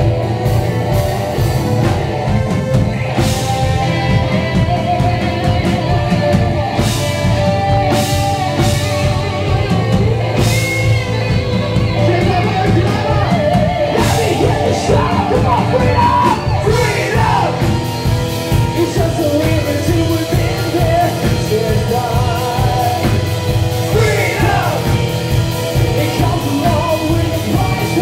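Rock band playing live, with electric guitars and a drum kit and repeated cymbal crashes. Vocals come in about halfway through.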